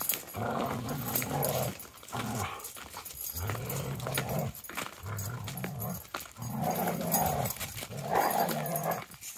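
Dogs growling during play-wrestling, a string of low growls about a second each with short breaks between.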